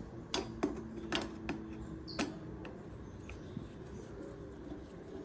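A small screw being turned out of a washer-dryer's frame with a manual screwdriver: scattered light clicks and ticks, most of them in the first two and a half seconds.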